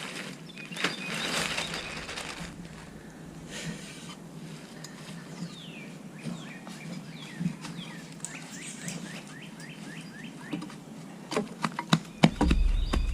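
A bird chirping outdoors: a run of quick, repeated downward-sweeping chirps in the middle. Rough scraping noises come early, and a few sharp knocks and a low rumble come near the end.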